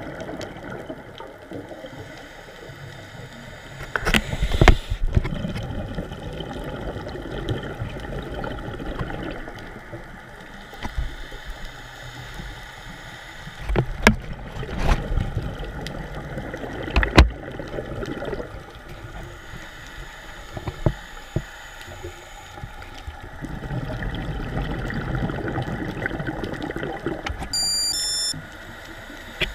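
Underwater sound through a camera housing: a scuba diver's exhaled bubbles rushing past in bursts every few seconds over a muffled rumble, with a few sharp knocks. A short run of high electronic beeps sounds near the end.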